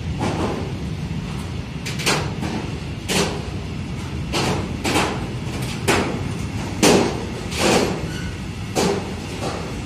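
Container freight train rolling past: a steady low rumble of the wagons with sharp metallic clanks and knocks from the wheels and wagons roughly once a second.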